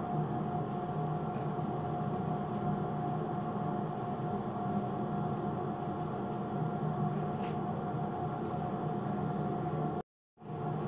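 A steady machine-like hum with a faint constant whine, like a fan or appliance running in a small tiled room; it cuts out to silence for a moment near the end.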